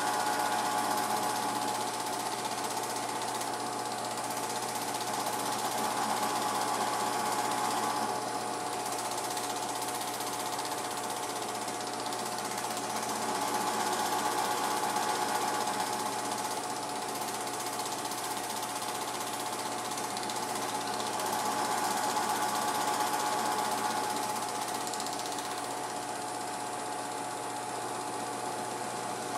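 Home-movie film projector running: a steady mechanical whir with a constant hum, swelling and easing slightly every several seconds.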